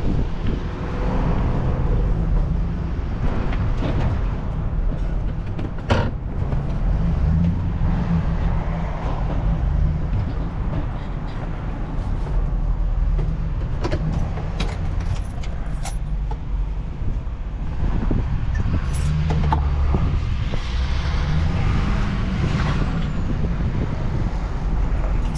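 Steady low rumble of a motor vehicle, with a few scattered clicks and knocks.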